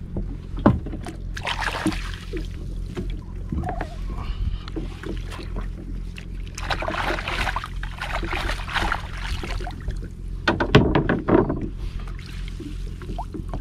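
A small boat's engine idles with a steady low hum while a gill net is hauled in and fish are worked out of it. Water splashes in a few stretches, and there are a few sharp knocks against the boat about a second in and again near the end.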